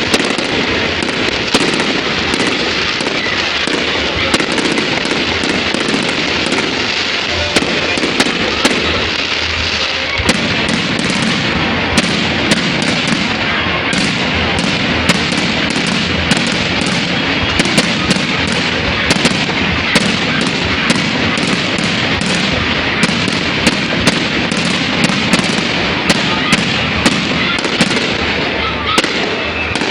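Fireworks going off without a break: a dense crackling noise with many sharp pops, several a second.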